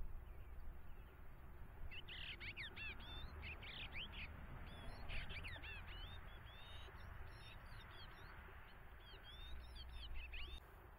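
Eastern bluebirds singing: three bouts of quick warbling notes that glide up and down, starting about two seconds in, again around five seconds, and near the end.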